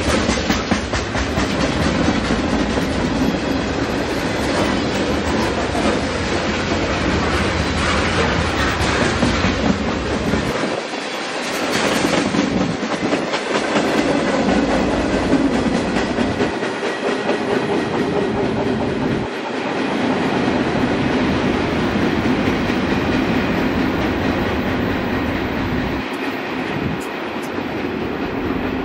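A CN freight train's cars rolling past, wheels clicking steadily over the rail joints.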